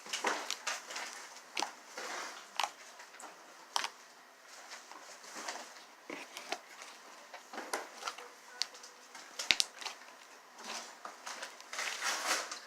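Slime being squished and pulled by hand, giving irregular small sticky clicks and crackles.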